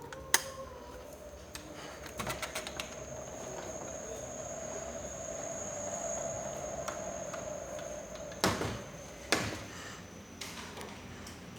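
Panasonic ceiling fan running with a steady high whine that switches on with a click and cuts off at a loud click about eight seconds later. A quick run of clicks comes about two seconds in, and a second loud click follows shortly after the whine stops.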